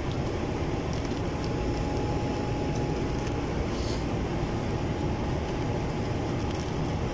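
Clear plastic bag crinkling in a few short bursts as a new hydraulic filter is pulled out of it, over a steady low background rumble.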